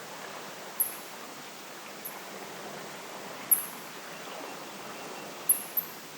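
Steady wind noise on a night by the sea, with about five brief, very high-pitched chirps at irregular intervals, the loudest about three and a half seconds in.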